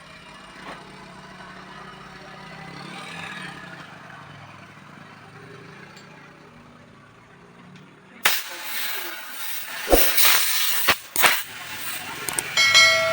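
Compressed air hissing from an air line into a punctured inner tube as it is inflated to find the leak. The hiss starts suddenly about eight seconds in, with a few sharp clicks, after low background noise.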